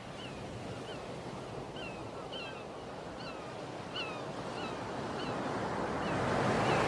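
Surf washing on a shore, fading in and growing steadily louder, with a string of short falling bird calls repeating about every half second to second.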